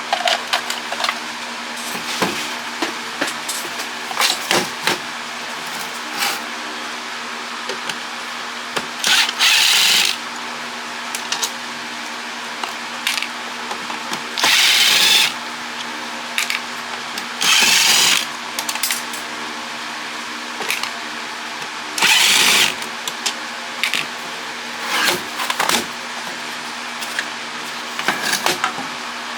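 A power tool, such as a cordless drill-driver, runs in short bursts of about a second, four times, while plastic parts of the router casing click and knock as it is taken apart.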